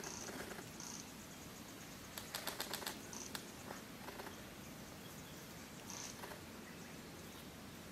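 Faint, short high-pitched bird peeps a few times. About two seconds in there is a quick run of about eight sharp clicks.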